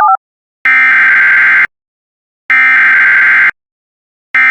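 Emergency Alert System SAME header: three bursts of digital data tones, each about a second long and a second apart, the last starting near the end. It is the encoded header that opens an EAS alert, here for a severe thunderstorm watch.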